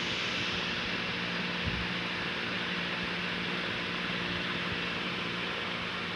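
Car engine running steadily at idle: a steady hum under an even hiss, with one brief low knock a little under two seconds in.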